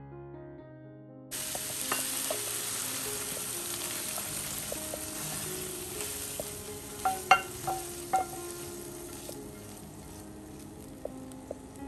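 Hot frying pan sizzling as sautéed green beans and peas are tipped out and scraped with a spatula, with a few sharp knocks of the spatula on the pan about seven to eight seconds in. Soft piano music plays for the first second and faintly beneath.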